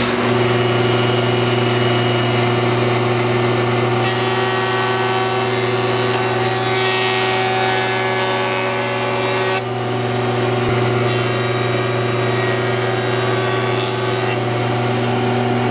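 Woodworking jointer running with a steady motor hum. A board is fed twice across the spinning cutter head, adding a rushing cutting sound about four seconds in and again about eleven seconds in.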